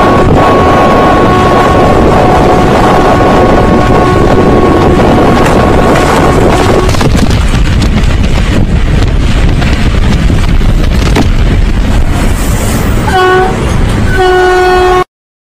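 Train horn held steady for about seven seconds over the loud rumble and wind rush of a moving train, then two short horn blasts near the end before the sound cuts off abruptly.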